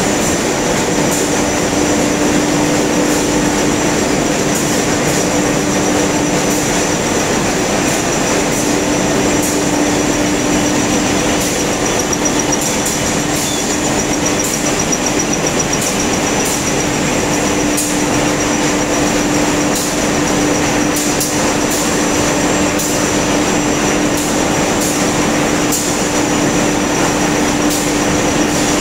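Full-servo adult diaper pull-up pant making machine running at high speed: a loud, steady mechanical din with a constant hum and a high steady tone, peppered with quick clicks.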